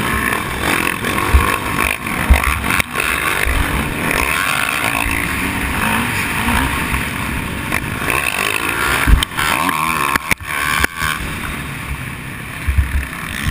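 Motocross dirt bike engine heard from on board, revving up and down as it rides a rough dirt track, with sharp knocks and low thumps as the bike hits bumps.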